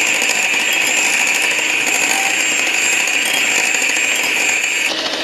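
Electric hand mixer running steadily with a high whine, its beaters creaming butter and brown sugar in a bowl. The whine drops away just before the end.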